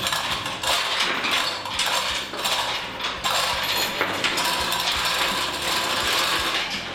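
Manual chain hoist being worked with a generator engine hanging on it: the chain clinking and the hoist's mechanism clicking in a run of short, irregular clicks.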